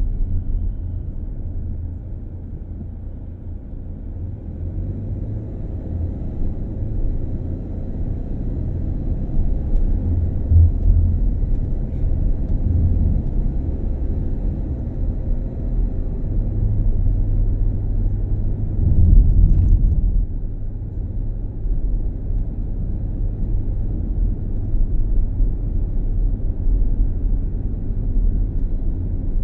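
Steady low rumble of a vehicle's engine and tyres heard from inside the cabin while driving on a paved road, louder for a moment about two-thirds of the way through.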